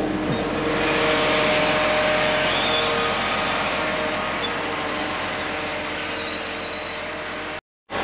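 A truck's engine running steadily, with a broad hiss that swells in the first few seconds and then eases; there is a brief gap of silence near the end.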